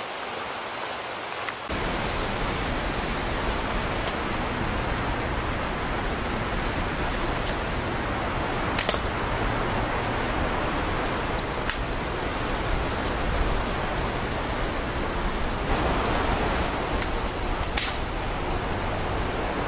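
Steady, even rushing noise with a low rumble that comes in about two seconds in, broken by a few sharp clicks or snaps.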